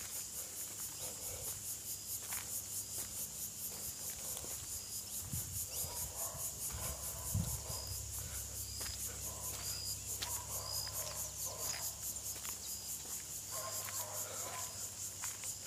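Insects chirring steadily in the surrounding grass: a high buzz pulsing rapidly, with a short high chirp repeating about once a second. Faint regular ticks, like footsteps, and a low steady hum run underneath; the hum swells briefly about halfway through.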